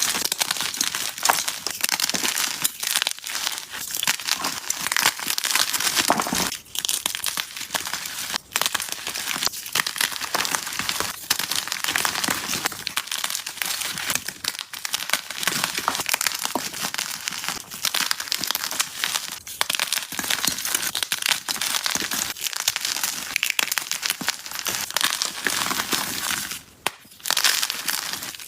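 Dyed gym chalk blocks being crushed and crumbled, a dense continuous crackling crunch that pauses briefly near the end.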